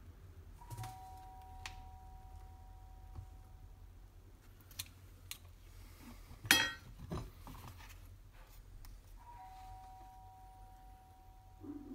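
Tools being handled on a workbench: a few light clicks and one sharper metallic clack about six and a half seconds in, with no motor running. A faint two-note steady tone sounds for a few seconds near the start and again near the end.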